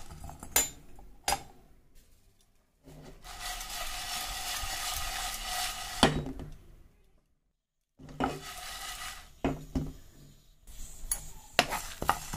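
A steel spoon stirring and scraping dry lentils and whole spices as they dry-roast in a pan: the grains rattle and rasp against the pan, with sharp clinks of spoon on metal. A steady stretch of rasping in the middle ends in a loud clink, and the sound cuts out completely for about a second after it.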